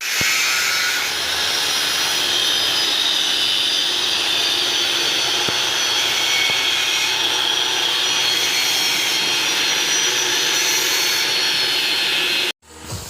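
A power tool grinding or cutting steel plate: a steady, loud, high-pitched whine over a hiss. It cuts off suddenly near the end.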